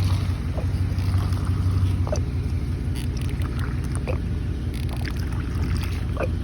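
A Chevrolet Silverado pickup's engine idling steadily, with a few faint light clicks over the hum.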